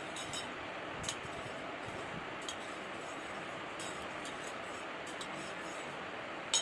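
Steady background hiss with scattered faint clicks and taps from hands working small pieces of soft clay; the sharpest click comes near the end.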